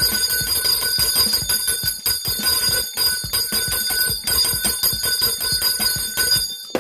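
A bell ringing continuously, its clapper striking rapidly and evenly over and over, then cutting off suddenly at the end.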